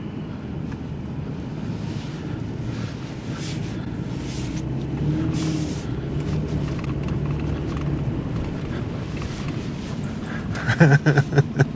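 Pickup truck with a camper driving, its engine running steadily under constant road noise, heard from inside the cab; a low droning engine note comes up about halfway through.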